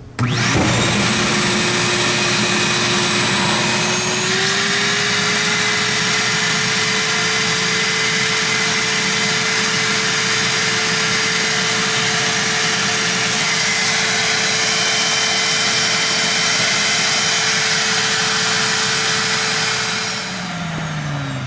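Wet/dry vacuum switched on and running steadily while sucking out an air conditioner's condensate drain line, its motor note stepping up in pitch about four seconds in. It shuts off near the end and its motor winds down. This line is not the clogged one.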